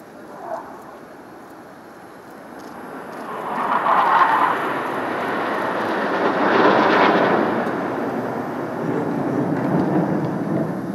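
A formation of BAE Hawk jet trainers passing overhead, their turbofan engines making a steady jet roar. It swells about three seconds in, peaks around four seconds and again near seven, then goes on as a lower rumble.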